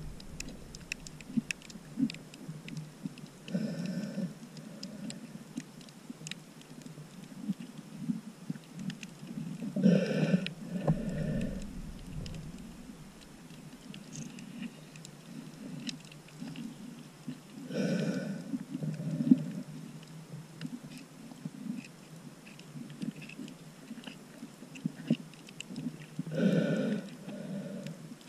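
Underwater sound picked up by a camera in its waterproof housing: a snorkeler's breathing through the snorkel swells up about every seven or eight seconds, four times, over a steady low rumble of water with scattered clicks and crackles.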